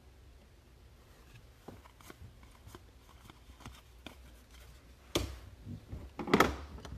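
Trading cards being handled and flipped through by hand: faint clicks and light rustles, then two louder rustles about five and six seconds in.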